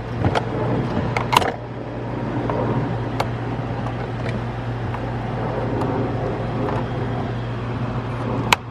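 A steady low hum with a noisy haze, like a motor running in the background, broken by a few sharp clicks and knocks as the old plastic coolant degas bottle and its hoses are worked loose.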